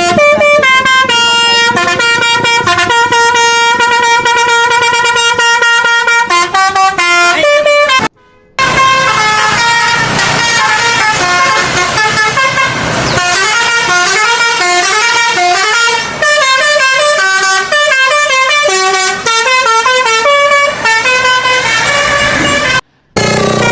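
Indonesian bus 'telolet basuri' multi-trumpet horns playing loud, tooting melodies, the notes stepping up and down in pitch. The sound drops out twice, briefly, about eight seconds in and near the end.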